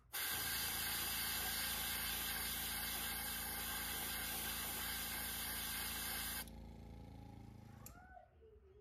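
Iwata Eclipse airbrush spraying opaque blue paint through a mesh stencil: a loud, even hiss of air and paint that cuts off sharply about six and a half seconds in. A low steady hum runs underneath and carries on for a moment after the spraying stops.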